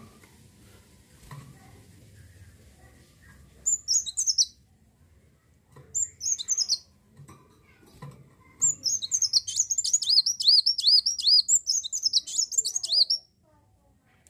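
Kowul (kolibri wulung) sunbird singing: two short high twittering phrases, then a long, fast run of rapid rising-and-falling high notes from about nine seconds in.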